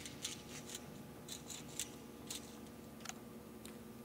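Felt-tip marker drawn along a steel straightedge on a concrete floor: scattered faint scratchy ticks and taps, over a steady low hum.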